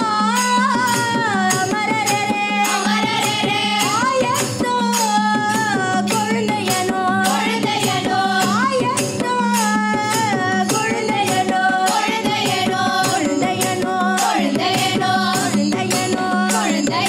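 A group of women singing a devotional bhajan in chorus into microphones, with barrel drums (mridangam) beating a steady rhythm and a steady drone tone held beneath the melody.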